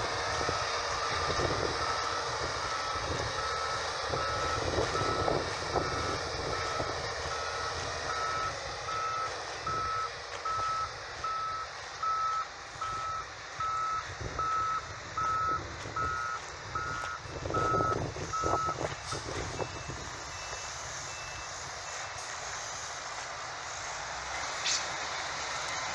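A Ford Cargo 1848T truck reversing with its diesel engine running and its reversing alarm beeping steadily at one pitch, about one and a half beeps a second. The beeping stops about two-thirds of the way through as the truck pulls forward, and a fainter, higher-pitched beeping is heard briefly after it.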